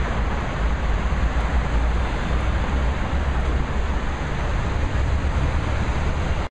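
A steady roar of noise with a heavy, uneven low rumble.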